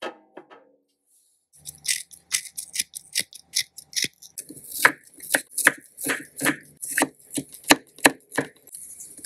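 A brief metallic clink at the start, then a miniature knife working a piece of fresh ginger: a series of sharp cutting strokes as it is trimmed in the fingers. From about four and a half seconds come louder, crisp chops on a small wooden cutting board as the ginger is minced, about two to three a second.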